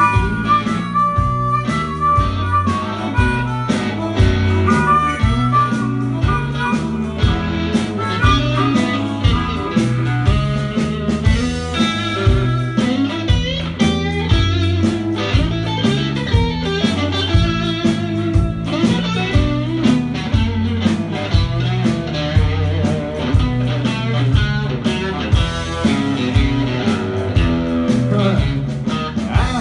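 Live country-rock band, electric guitars, bass and drums, playing an instrumental stretch with a steady beat and a lead line over it.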